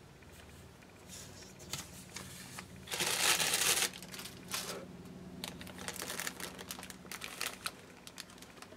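Clear plastic bags of spinning fiber crinkling as they are handled, with a louder rustle about three seconds in.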